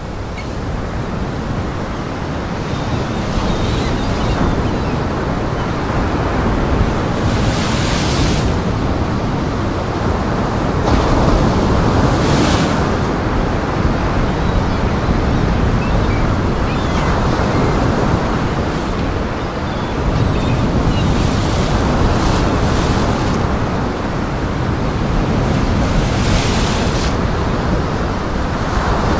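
Heavy surf breaking against rocks and a pier: a steady rush of churning water with sharper splashes every few seconds, and wind buffeting the microphone.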